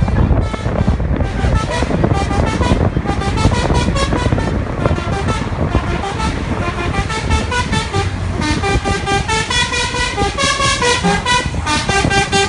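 Telolet horn, a multi-tone musical horn on a truck, playing a rapid stuttering run of notes over the truck's engine rumble. From about eight seconds in, its stepping notes stand out more clearly.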